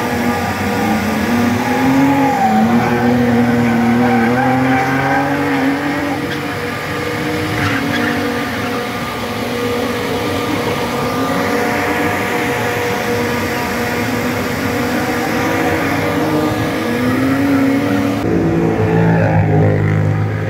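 Car engine revving hard, its pitch rising and falling again and again as the car drifts, with tyre squeal from the sliding tyres. Near the end the engine note turns deeper.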